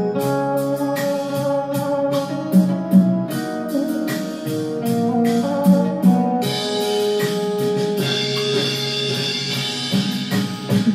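Instrumental backing music between sung verses, with held notes over a steady beat. A bright shimmer joins about two-thirds of the way through.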